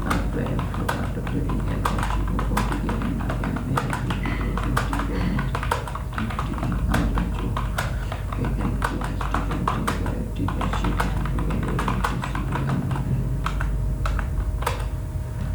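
Computer keyboard keys clicking in a rapid, irregular run of keystrokes: continuous fast touch-typing during a timed typing test. A steady low hum sits underneath.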